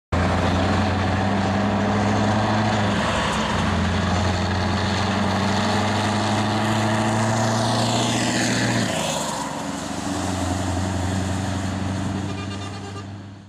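Scania 164 truck's V8 diesel engine running as it hauls a container semi-trailer past, a steady deep drone. The engine note changes about three seconds in and again about nine seconds in, and a high whistle sweeps down shortly before the second change. The sound fades near the end.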